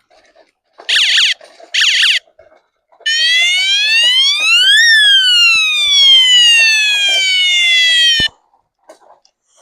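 An electronic siren-like tone: two short downward chirps, then one long sweep that rises steadily and falls back down before it cuts off suddenly.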